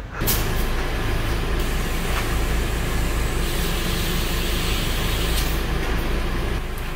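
Air compressor running with a steady low hum and hiss. The hiss grows stronger for a few seconds in the middle.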